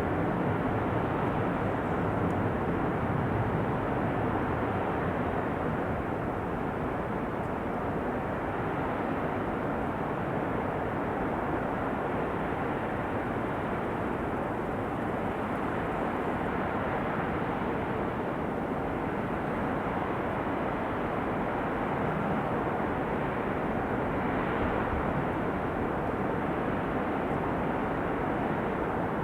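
River water rushing, a steady even noise with no change in level.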